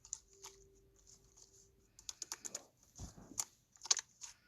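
Scattered light clicks and taps, coming in a few quick clusters about two, three and four seconds in, with a faint steady hum in the first two seconds.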